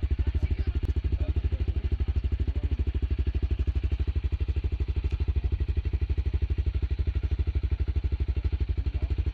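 Honda CRF250L's single-cylinder four-stroke engine idling steadily, a fast, even beat that holds at one speed without revving.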